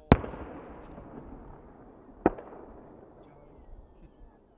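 Aerial firework shells bursting: a sharp bang just after the start and a second, smaller one about two seconds later, the first trailing off in a long echoing rumble and crackle that fades over a few seconds.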